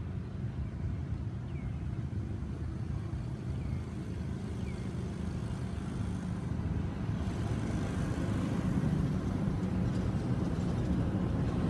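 Steady low rumble of motor vehicle traffic, growing louder in the last few seconds, with a few faint short high chirps in the first half.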